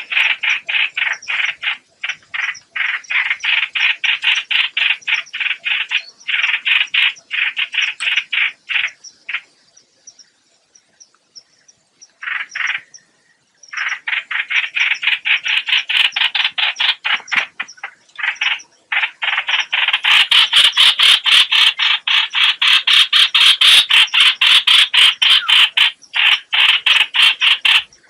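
Recorded call of the bird Vietnamese trappers call 'hoạch hoạch', played as a lure for bird trapping: long runs of fast, harsh, croaking notes, about five a second. The notes stop for a few seconds about a third of the way in, then resume and grow louder near the end.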